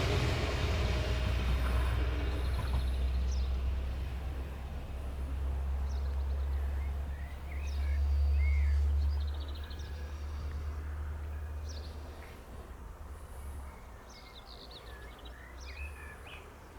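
The steam special train hauled by locomotive 23 042 fades away into the distance after passing. A low rumble swells briefly near the middle and dies down, while birds chirp.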